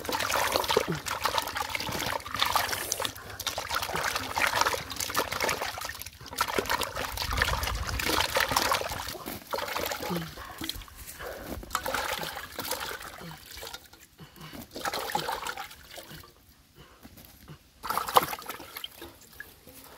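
Hands washing peeled papaya pieces in a metal pot of water: irregular sloshing and splashing, quieter in the last few seconds, with one sharp knock near the end.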